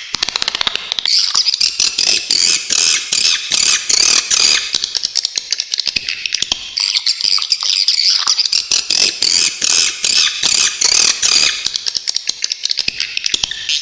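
Swiftlets calling in a dense, continuous stream of sharp, rapid, high chirps and twitters, with a short thinning about halfway through.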